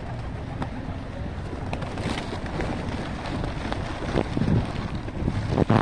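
Wind noise on the microphone, with the wings of a dense flock of feral pigeons flapping close by and scattered light clicks.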